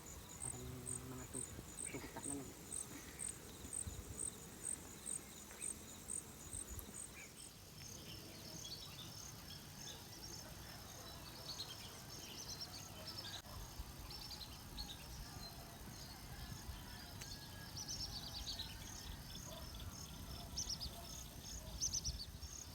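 Faint insect chirping. A high, even chirp repeats about twice a second, and after about eight seconds more insects join in, chirping at several rates.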